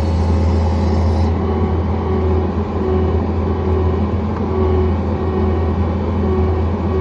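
John Deere 317 skid steer engine running steadily, with a brief hiss over it in the first second or so.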